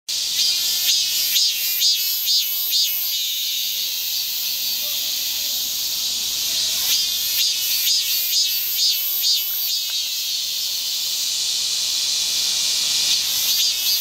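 Cicada singing: a shrill, high buzzing drone broken by runs of rapid pulses, about two a second, that last a few seconds at a time. The drone runs on steadily between the runs.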